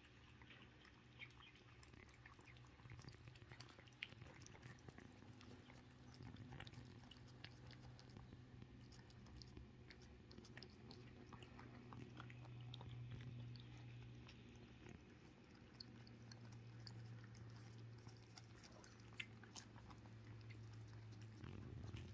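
Cats eating tuna: faint, irregular chewing and licking clicks over a low, steady hum.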